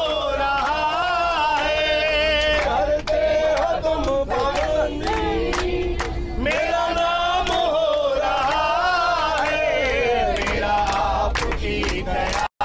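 A group of train passengers singing a Hindu devotional bhajan together in chorus, clapping their hands along with it.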